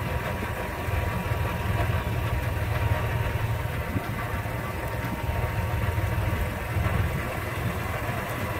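Car running at low speed, heard from inside the cabin: a steady low engine and road rumble.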